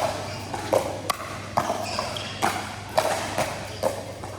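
Pickleball rally: paddles striking a hard plastic ball back and forth, a run of sharp pocks about two a second, some followed by short high pings.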